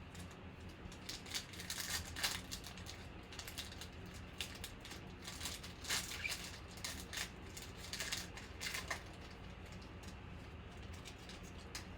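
Trading cards and pack wrappers being handled: irregular soft rustles, slides and flicks, busiest in the first nine seconds, over a low steady hum.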